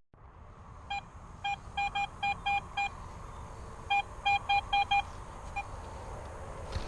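Garrett metal detector giving short, same-pitched beeps in two quick runs, about seven and then about five, as it picks up targets.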